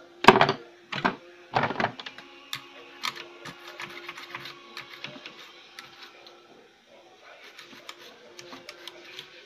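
Hand tools working on a CRT TV circuit board: three loud scraping strokes in the first two seconds, then light ticks and taps.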